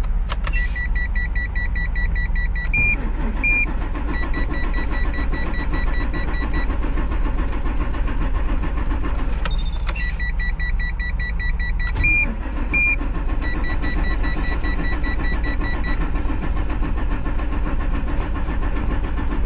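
Truck dashboard warning buzzer beeping rapidly in four spells of about two seconds each, with a pair of higher single beeps twice, over a steady low rumble. The warning lamps and a low-fuel message are lit, a false alarm put down to a faulty fuel sensor.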